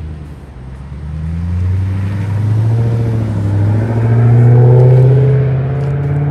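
Toyota Celsior (30-series) V8 exhaust through an aftermarket loop muffler and straight center pipe, the car accelerating past and away. The engine note rises in pitch, dips briefly near the middle and climbs again, growing louder to a peak about four to five seconds in.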